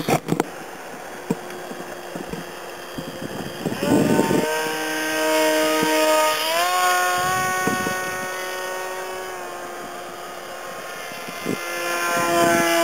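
Small propeller motor of a homemade foam delta-wing RC plane whining in flight. The whine comes in about four seconds in after a few clicks and a burst of rushing noise, steps up in pitch about six and a half seconds in, sags a little, then climbs again near the end.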